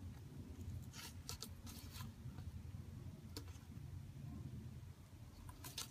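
Faint scraping of a glue stick rubbed around a small paper frame, with a few light clicks and taps from handling the stick and its cap.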